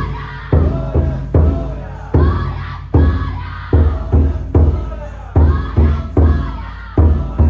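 A large taiko drum inside a festival float (taiko-dai) beaten at a steady pace, about one heavy beat every 0.8 s. A group's shouted chant rises with each beat.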